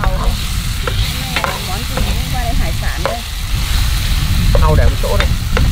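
Shrimp and oysters sizzling in a hot pan as they are stir-fried, with a utensil clicking against the pan several times, over a strong low rumble.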